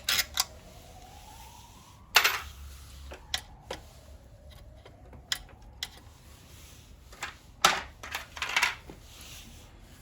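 Hand tools clicking and knocking against metal as the screws holding a motorcycle's rear brake master cylinder are undone, in scattered sharp clicks, with louder knocks about two seconds in and near the end.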